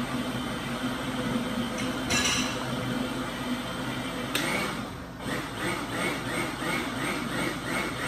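Countertop blender motor running steadily, blending a thin liquid mix of milk, sugar and unfrozen strawberries. A short clink comes about two seconds in, and after about four seconds the sound changes to a rhythmic pulse, two or three a second.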